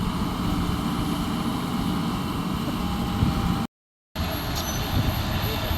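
Heavy diesel earthmoving machinery running steadily and loudly, cutting out completely for a split second about two-thirds of the way through.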